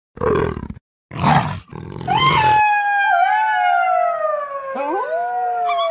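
Wolf howls played from an animal-sounds app: long drawn-out howls that slowly fall in pitch and overlap one another, beginning about two seconds in. They are preceded by three short, noisy animal calls.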